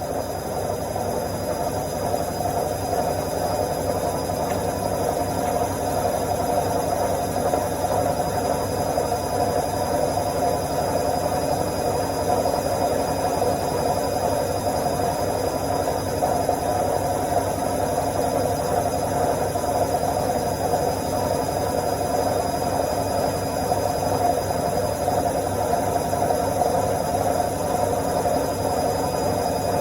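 Washing machine on its spin cycle, the drum spinning with a steady hum and vibration that does not change.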